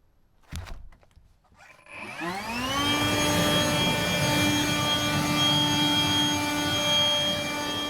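Electric motor of a snow-clearing machine, most likely an electric snow blower, switched on with a knock. About two seconds in it spins up in a rising whine, then runs at a steady high whine.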